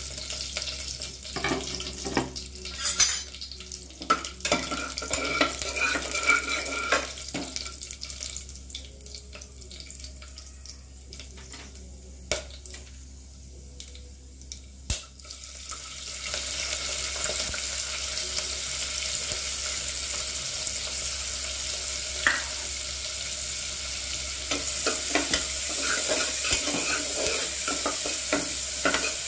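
Whole spices dropped into hot oil in an aluminium pressure cooker give scattered clicks, spoon taps and a light sizzle. About halfway through, chopped onions go into the oil and a loud, steady frying sizzle starts, with a steel spoon scraping and stirring in the pot. The sizzle grows louder near the end.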